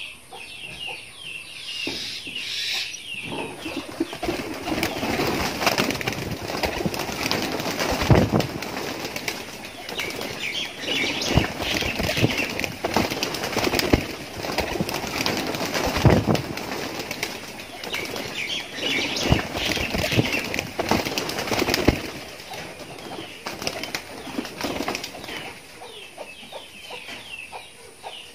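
Domestic pigeons flapping their wings in repeated flurries as they take off from the loft, with the loudest wingbeats about a third and halfway through. High bird chirps run alongside.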